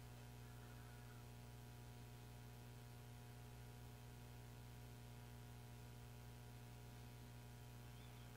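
Near silence, with a steady low electrical hum underneath.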